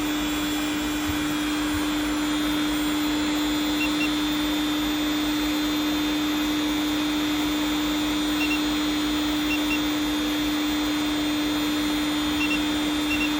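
Electric motor driven by a Siemens Simovert VC frequency inverter, running steadily at full speed on a test run after repair: a constant hum with one steady pitched tone over a noisy rush.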